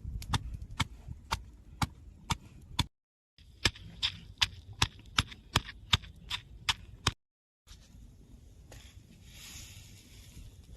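A blade chopping with sharp, regular strikes, about two to three a second, cut off twice by brief silences; the knocks become sparse near the end.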